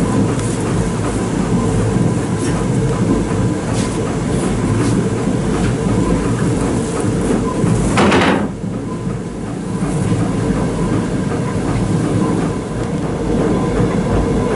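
The wooden machinery of a working windmill running: a steady rumble with a rhythmic clatter from the gearing and millstones. About eight seconds in there is a brief loud rushing burst, as the sack-hoist rope is pulled.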